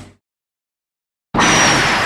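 Spacegodzilla film sound effects: one effect cuts off right at the start, followed by silence, then another starts abruptly about a second and a half in as a loud rushing noise with a thin high whistle on top.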